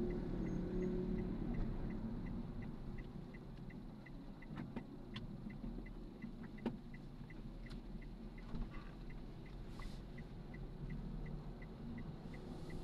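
Car cabin rumble with the indicator ticking evenly, about three ticks a second, and a few sharp clicks near the middle.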